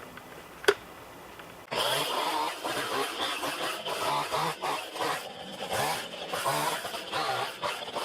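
Two-stroke chainsaw cutting into a tree, its engine pitch rising and falling as it bogs under load and revs free again; it comes in suddenly about a second and a half in.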